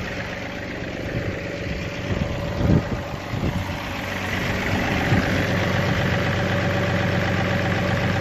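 John Deere 2038R compact tractor's three-cylinder diesel running steadily while its hydraulics raise the three-point arms to take the backhoe's weight. There are a couple of short knocks near the middle, and the engine sound grows a little louder about halfway through.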